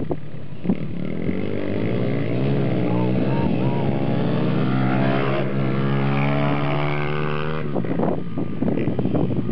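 Dirt bike engine revving as the bike accelerates, its pitch climbing for a few seconds and then holding steady. The engine sound breaks off suddenly near the end, leaving wind noise on the microphone.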